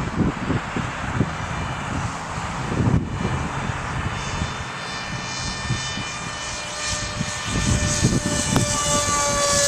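Electric brushless motor and 6x4 propeller of a foam-board RC plane whining in flight, a steady high tone that comes in about halfway through and grows louder toward the end as the plane comes nearer. Wind buffets the microphone throughout.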